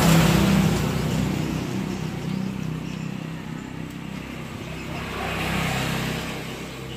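Evinrude 12 hp two-stroke outboard engine running. It is loudest at first and eases off over the next few seconds, then swells again about five and a half seconds in before fading.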